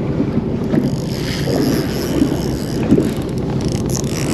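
Steady wind buffeting the microphone over the low hum of a fishing boat's engine.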